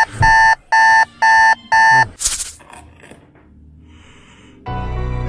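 Electronic alarm beeping, a steady two-tone beep about twice a second, stopping about two seconds in. Then comes a short loud whoosh, some faint rustling, and music starts near the end.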